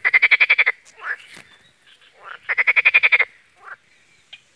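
A frog calling loudly twice, each call a rapid rattling croak of about ten pulses lasting under a second, the second starting about two and a half seconds after the first.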